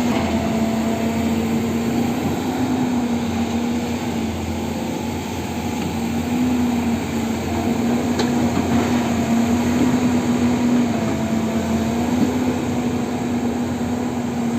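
Excavator's diesel engine running steadily, its pitch wavering slightly up and down.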